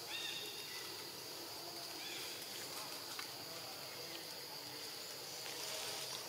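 Steady high drone of insects in the undergrowth, with a short high-pitched call right at the start and a fainter one about two seconds in.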